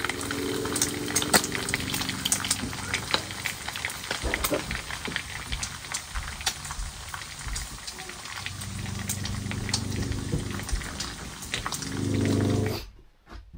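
Bacon frying in a pan on a propane camp stove: a steady sizzle full of sharp crackling pops. A low humming sound comes in near the start and again in the last few seconds, loudest near the end.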